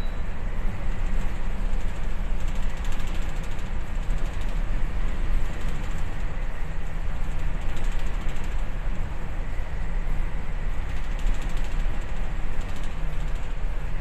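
Steady low rumble with a grainy rushing hiss over it, aboard a bulk carrier under way in rough seas: ship's engine, wind and sea noise blended, with no single event standing out.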